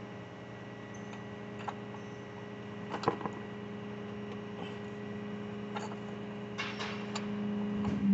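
A steady motor hum with a few light clicks and clinks over it; at the very end the hum swells and starts to wind down, falling in pitch.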